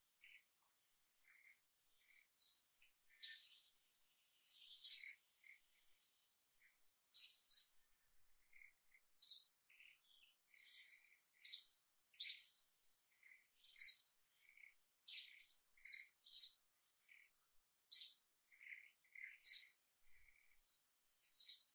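Birds chirping: short high chirps repeating every second or two, with quieter, lower notes in between and a faint steady high whine underneath.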